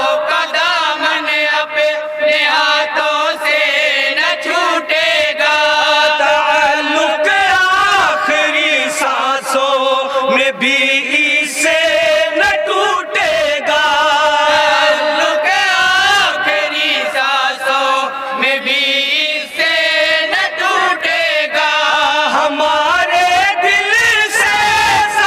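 A group of men singing an Urdu naat in chorus, unison voices carrying a wavering, ornamented melody with no instruments.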